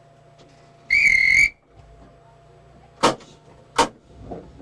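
A cab buzzer sounds one short, loud, steady tone about a second in. It is the kind of signal a conductor gives the driver that the train is ready to depart. Two sharp clicks follow, about three and four seconds in, over a faint steady low hum.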